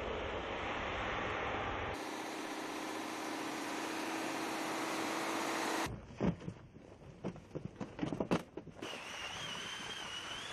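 Outdoor sound from military vehicles and soldiers at work: steady engine and wind noise with a low hum, then several sharp knocks and clunks as soldiers work at a vehicle's open side hatch, then steady noise again with a thin wavering whine near the end.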